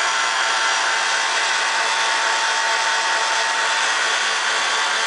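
Small bench belt sander running steadily, with a steady whine over the rush of the belt, used to grind a golf club's ferrule down to finish.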